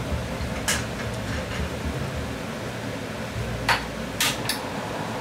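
A few light clicks and knocks of kitchen utensils and cookware being handled at the stove, spaced out over several seconds, three of them near the end, over a steady low background hum.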